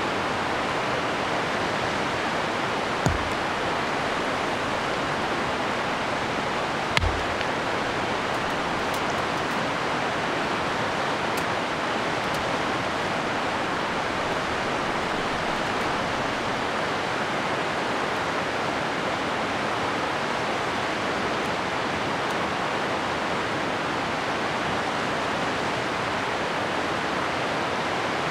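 Steady rushing of the Piteå river rapids, with two short knocks about three and seven seconds in.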